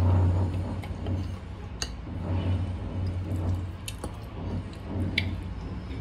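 Low rumbling noise from neighbouring renovation work, rising and falling unevenly, with a few light clinks of a fork and spoon against a noodle bowl.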